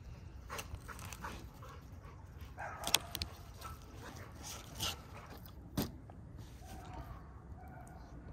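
A dog barking: several short barks spaced a second or more apart, the loudest about three seconds in.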